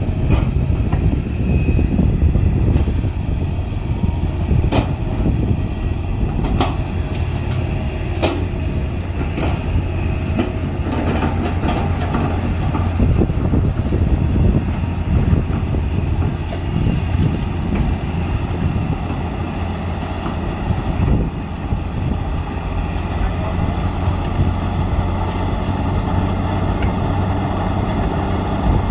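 Heavy diesel earthmoving machinery running steadily with a deep engine hum, and sharp metallic clanks and knocks now and then.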